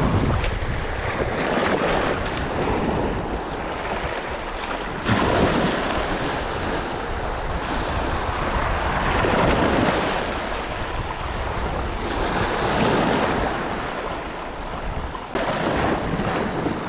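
Small surf washing in over a rocky shore in repeated surges, with wind rumbling on the microphone.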